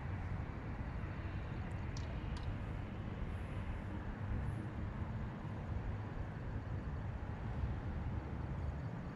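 Steady noise of road traffic, a constant low rumble of cars passing on a busy road.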